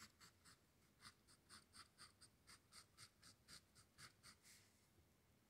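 Faint, quick strokes of a Pen+Gear dual-tip brush marker's brush tip flicking across textured canvas, a soft scratch about four times a second, pausing briefly near the start.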